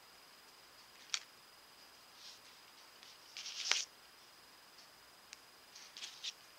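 Small clicks and brief brushing scrapes from fingers handling a small wire piece and gemstone chips on a tabletop. The loudest is a cluster of scraping ending in a sharp click about halfway through, and there are a few more rustles near the end. A faint steady high whine runs underneath.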